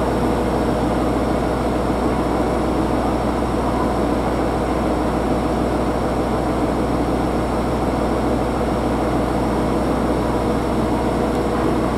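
Freight train's container flat wagons rolling past alongside the platform: a steady, even noise of wheels running on the rails.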